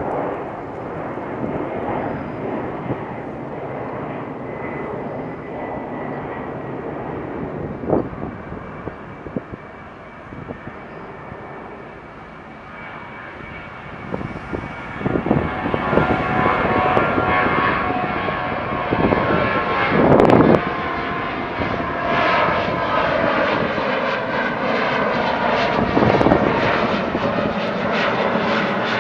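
Boeing 737-700's CFM56-7B turbofan engines at takeoff thrust: a steady jet engine noise that grows clearly louder about halfway through, with a whine in it, as the jet accelerates and passes.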